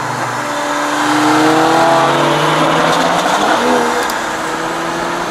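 A car engine revving hard, its pitch climbing and its sound swelling to the loudest point about two seconds in, then easing off.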